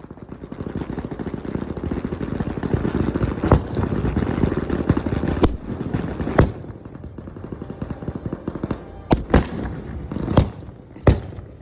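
Professional fireworks cakes firing: a dense, rapid crackle of shots builds up over the first few seconds, broken by several louder sharp bangs, then thins out into a sparser run of single sharp bangs in the second half.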